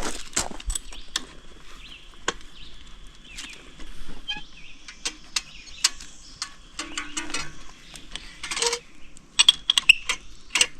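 Campground water spigot being worked by hand: irregular metallic clicks and clunks from its handle, with no water coming on.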